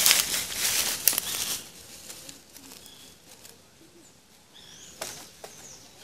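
Dry leaf litter crunching and rustling under footsteps and handled sticks, loudest for the first second and a half, then dying away. Faint, short bird chirps follow.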